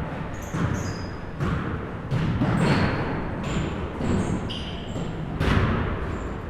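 Basketballs bouncing on a gym floor in irregular thuds, with several short, high sneaker squeaks and a low murmur of players' voices underneath.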